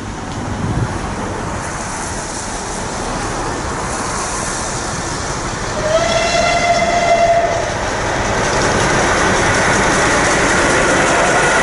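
Steam whistle of Merchant Navy class locomotive 35028 'Clan Line', one note held for about a second and a half, about six seconds in. After it the passing train's running noise grows steadily louder as it approaches at speed.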